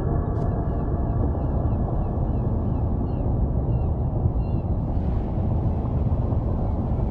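Dark ambient drone: a dense, steady low rumble with a scatter of small, short chirping calls high above it. A hiss joins about five seconds in.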